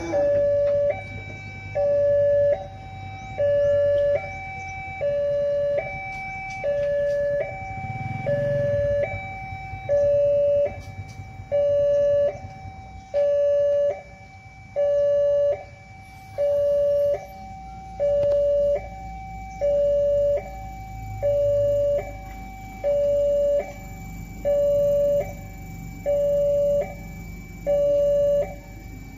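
Railway level-crossing warning alarm sounding a repeating two-note electronic chime, a higher note followed by a louder lower one, about once a second, warning that a train is approaching.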